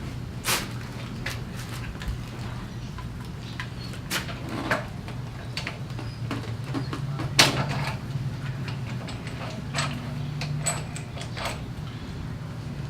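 Scattered clicks and knocks of handlebar controls being slid onto a motorcycle handlebar and fitted in place, the loudest knock about seven and a half seconds in. A steady low hum runs underneath.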